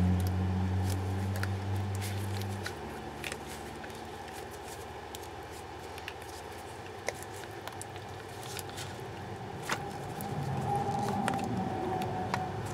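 Gloved hands peeling a cured resin piece out of a flexible silicone mold: faint crackles, clicks and rubbing of the soft silicone. A low steady hum stops about two and a half seconds in, and a low rumble builds near the end.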